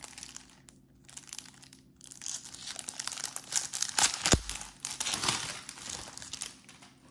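Crinkling and tearing of a thin plastic wrapper being worked open by hand on a paper notepad, in rustling stretches with short pauses and a single thump about four seconds in.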